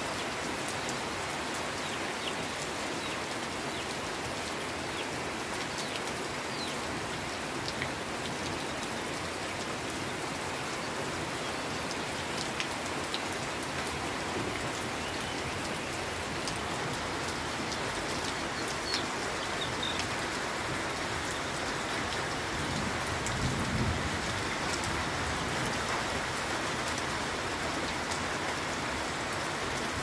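Heavy rain falling steadily on trees and broad leaves, a dense even hiss with scattered sharper drop hits close by. A brief low rumble rises about three-quarters of the way through.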